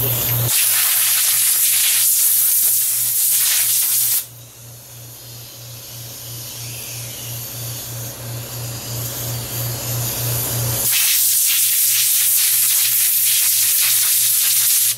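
Compressed air from an air chuck hissing as it blows dirt out of a lawn mower's air filter. There are two long loud blasts, the first stopping after about 4 s and the second starting about 11 s in, with a much quieter hiss between them. A low pulsing hum runs underneath.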